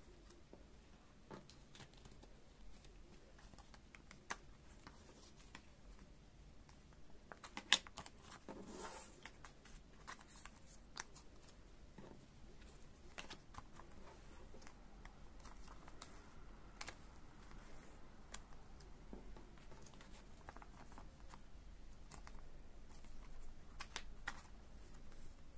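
Quiet clicks and taps of photocards and thin clear plastic sleeves being handled on a tabletop, with light rustling of the plastic. A sharper cluster of clicks and rustle comes about eight seconds in.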